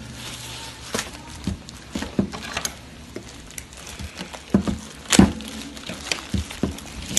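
Packaging being cut and pulled open by hand on a table: irregular taps, scrapes and rustles of tightly wrapped plastic and paper, with a louder knock about five seconds in.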